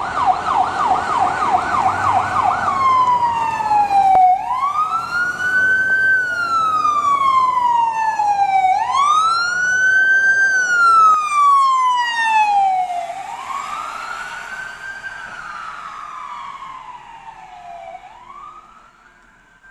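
Ambulance electronic siren, starting on a fast yelp and switching after a few seconds to a slow wail that rises and falls about every four to five seconds. It is loud at first and fades over the last several seconds as the ambulance moves off down the road.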